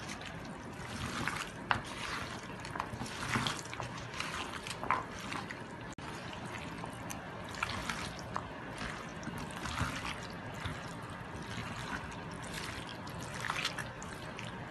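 Hands mixing chopped vegetables and cubed meat coated in pepper paste in a large metal tray: a wet squishing and rustling with irregular small clicks as the pieces are turned over.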